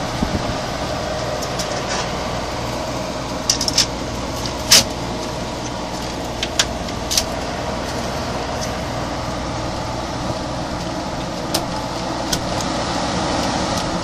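1970s General Electric Slumberline window air conditioner running steadily, its fan blowing air with a low hum. A few short sharp clicks and taps come from the plastic front grille and louvers being handled, the loudest about a third of the way in.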